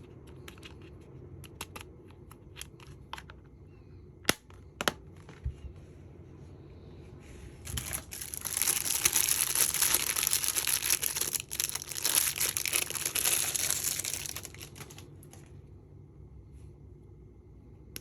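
Packaging wrap being crinkled and torn open for about seven seconds, after a few scattered clicks and taps.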